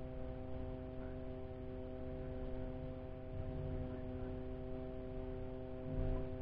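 A steady hum made of several fixed pitches, over an uneven low rumble, with a brief low bump near the end.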